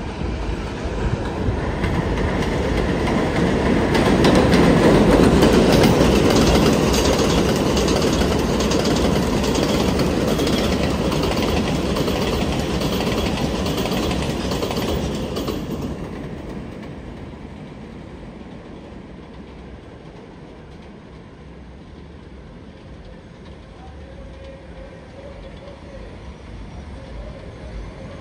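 R188 subway train running on the elevated steel tracks close by, its wheels clattering over the rail joints, loudest a few seconds in. About sixteen seconds in it drops abruptly to a low, steady rumble of trains further off.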